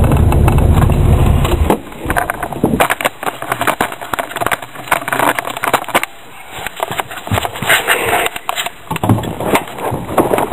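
Straight-piped Plymouth 318 V8 idling loudly, then shut off about a second and a half in. A run of irregular clicks, knocks and rustling follows as the camera is handled and carried.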